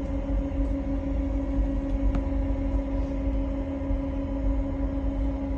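Steady cabin hum of a SpaceX Crew Dragon capsule in orbit: its air-circulation fans and life-support equipment running, a constant mid-pitched tone over a low rumble.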